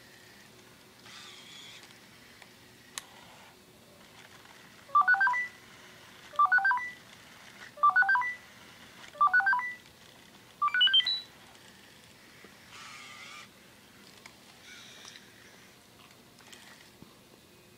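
Sony Aibo robot dog sounding five short electronic tone phrases about a second and a half apart, each a quick run of beeps, the last one climbing higher. Faint whirring from its leg motors as it shifts position comes between them.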